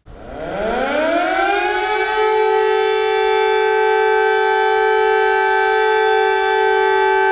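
Civil defence warning siren of an emergency alert, winding up from a low pitch over about two seconds and then holding one loud, steady tone.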